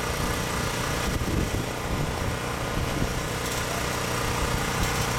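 A steady engine drone runs throughout, an even machine hum with no clear changes.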